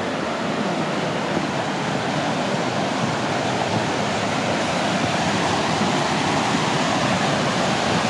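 Brook water rushing over an old weir and churning into white water below it, a steady, even rush that grows slightly louder toward the end.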